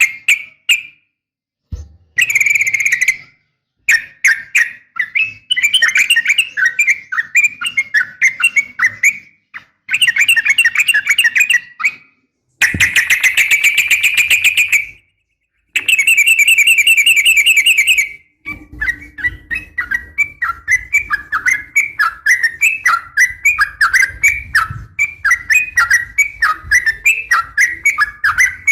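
Yellow-vented bulbul (trucukan) chattering in rapid strings of notes. There are several separate bursts with sudden gaps between them, then a long unbroken run of quick repeated notes from about two-thirds of the way through.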